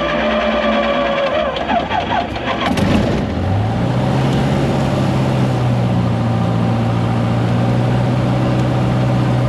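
Cessna 150's Continental O-200 four-cylinder engine being started, heard from inside the cabin: it cranks over unevenly, catches about three seconds in, then settles into a steady idle.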